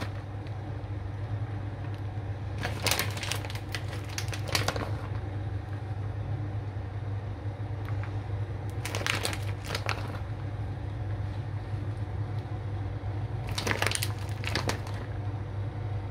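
Plastic packet of shredded mozzarella crinkling in three short bouts as the cheese is shaken out over the lasagna, over a steady low hum.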